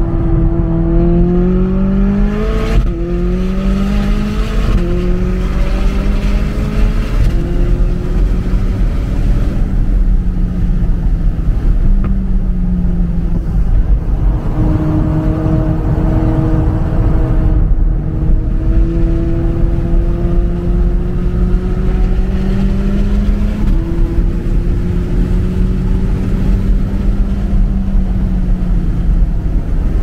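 McLaren 600LT Spyder's twin-turbo V8 pulling hard on track. Its pitch climbs under acceleration and drops sharply at upshifts, twice in the first five seconds and once near the end, over a steady low rumble.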